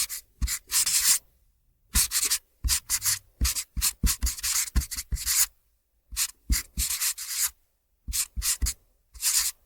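Felt-tip marker writing: short squeaky-scratchy strokes of the felt nib across the surface, in quick groups with brief pauses between them.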